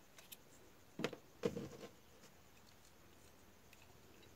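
Faint handling of disassembled angle grinder parts, a brief light knock about a second in and another half a second later, then near silence.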